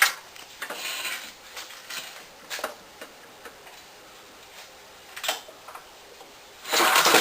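Light clicks and short rasping noises from a small go-kart engine being worked on in a failed attempt to get it to start, with a louder, longer rasp near the end.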